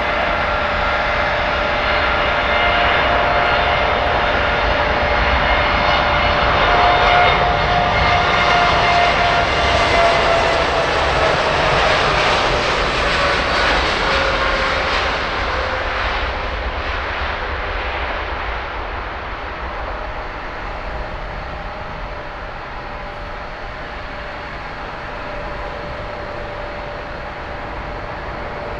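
Jet airliner's engines passing by: a loud, steady whine and rush, with a tone that slides down in pitch as the aircraft goes past. It is loudest about a third of the way in, then slowly fades.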